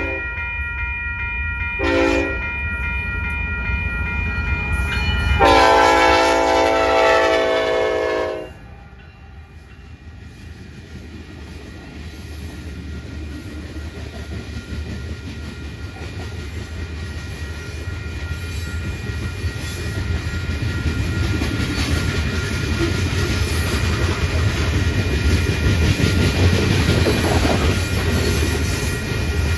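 Union Pacific GE C45ACCTE freight locomotive's air horn: the tail of one blast at the start, a short blast about two seconds in, then a longer blast of about three seconds from around five seconds in. After the horn stops, the rumble and wheel clatter of loaded coal hoppers rolling past grows steadily louder.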